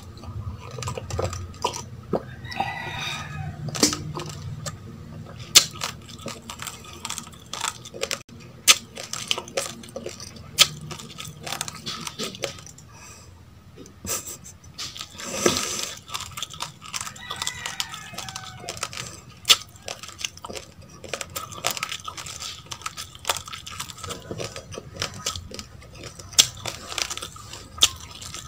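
Close-up crunching of uncooked rice grains being chewed, with many sharp, irregular cracks.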